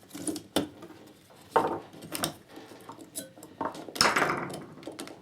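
Clicks, knocks and scraping of a metal 18650 lithium cell being pushed and worked against the plastic cell holder of a Dyson battery pack, several sharp knocks with the loudest about one and a half and four seconds in; the cell is stuck fast and won't push out.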